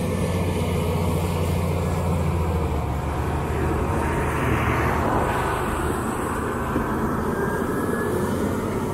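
Heavy diesel engine of a road-construction vehicle running steadily with a low hum, and a rushing noise that swells and fades about four to six seconds in.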